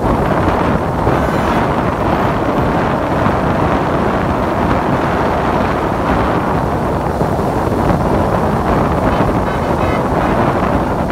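Wind buffeting the microphone over a steady stream of cars and pickup trucks passing on a wet road.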